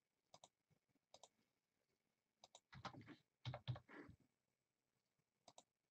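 Faint computer clicks, mostly quick double clicks a second or so apart, with a louder patch of soft knocks a little past the middle.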